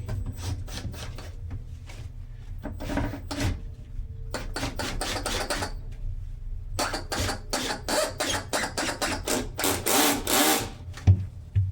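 Cordless drill driving screws into a door closer bracket in several bursts of a few seconds each, with rapid clicking and rattling, and a sharp knock near the end.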